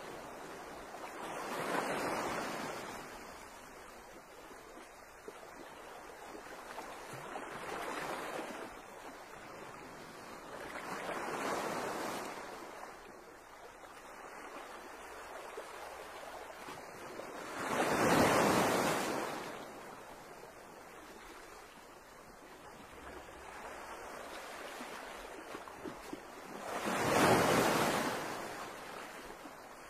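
Small waves washing against the quay in slow, separate surges of hiss, five in all, each lasting about two seconds; the two loudest come about two-thirds of the way through and near the end.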